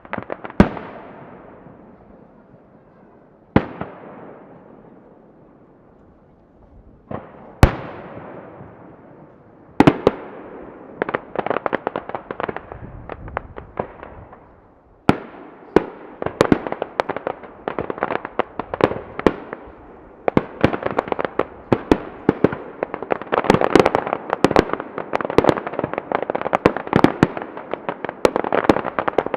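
Distant aerial firework shells bursting. The first few bangs come one at a time, a few seconds apart, each with a long echoing tail. About halfway through, the show breaks into dense, rapid crackling: many small pops overlapping.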